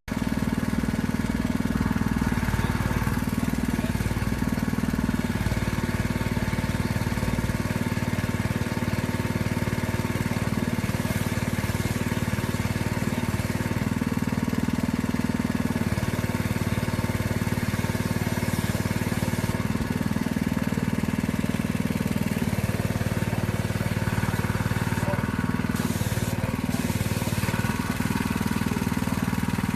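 McLaren sports car engine running steadily at idle, its low note shifting slightly every few seconds.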